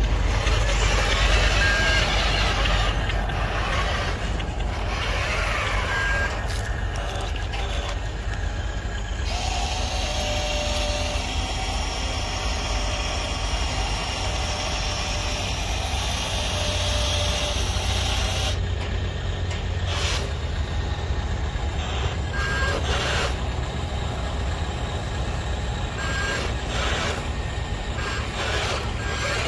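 Radio-controlled dump truck running as its tipper bed raises and dirt pours off the back. Its motors and sound-module truck noise make a steady mechanical sound, with a few short high beeps.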